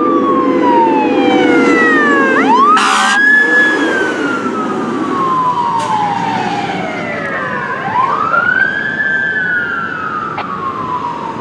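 Fire crew truck's siren wailing in long sweeps: each quick rise is followed by a slow fall, with a low engine rumble underneath. A brief burst of hiss comes about three seconds in, and the siren fades as the truck drives away.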